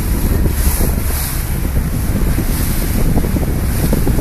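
Wind buffeting the microphone, steady and loud, over the rush of sea water around a moving boat.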